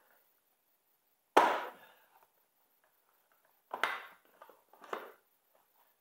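Three hard knocks and clatters from tools and plastic body panels being handled while the panels come off the motorcycle: a sharp one about a second and a half in, then two softer ones a second apart near the end.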